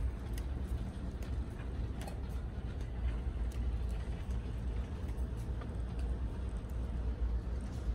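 Shopping cart rolling over a hard store floor: a steady low rumble from the wheels, with faint rattling clicks and creaks from the wire basket.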